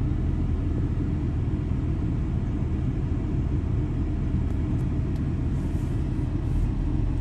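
A heavy machine's engine running steadily, a low, even rumble.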